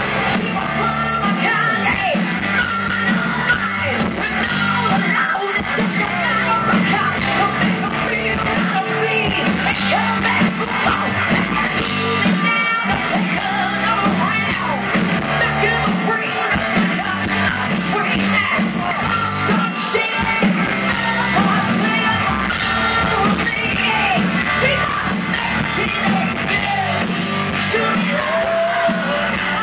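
A live rock band playing loudly, with electric guitar, drums and a lead singer, and yells over the music.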